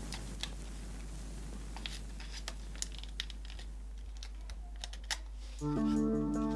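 Light, irregular clicks and taps over a low steady hum, then music begins about five and a half seconds in.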